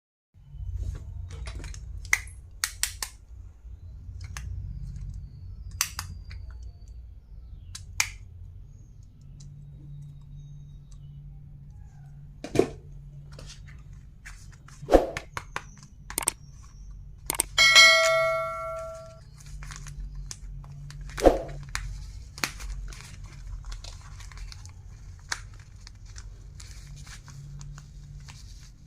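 Scattered clicks and taps of stationery items and packaging being handled, over a steady low hum. About two thirds of the way through, one bell-like ding rings out and fades over a second or so.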